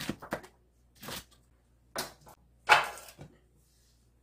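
A chef's knife chopping through garlic scapes onto a wooden cutting board: several sharp knocks at irregular spacing, a quick cluster at the start and then single chops, the loudest about two and a half seconds in.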